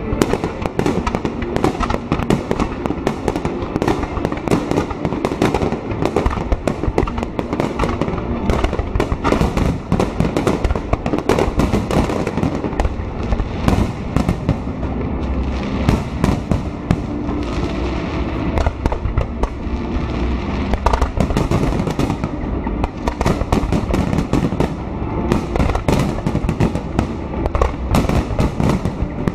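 Fireworks display: a dense, unbroken barrage of aerial shell bursts, many bangs each second.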